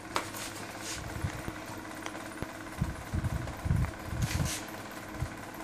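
Soft, irregular low thumps and rubbing as a hand pats and rubs a basset hound's belly, bunched in the second half, with a few faint clicks.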